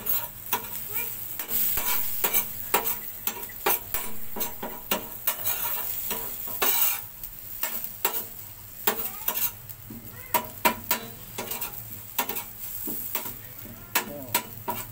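Metal spoon scraping and clicking irregularly against a hot flat griddle plate while a pounded chili paste fries in oil, sizzling steadily.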